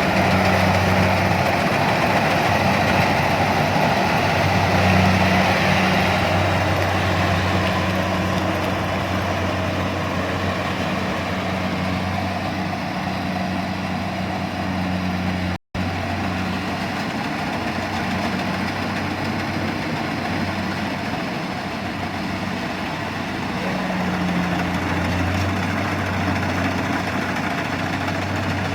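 An engine running steadily: a low hum with a broad mechanical rush above it, most likely farm machinery working the rice harvest. The sound drops out for an instant about halfway through.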